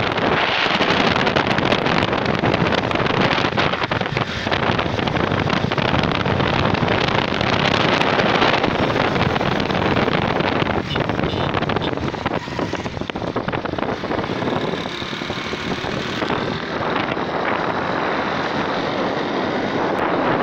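Wind rushing over the microphone of a moving motorcycle, with the engine and road noise running underneath; steady throughout.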